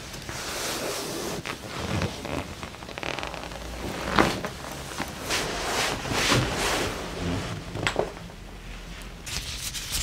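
Rustling of clothing against a padded chiropractic table as the patient is moved and positioned for an adjustment. A few sharp cracks stand out, the loudest about four seconds in and another near eight seconds.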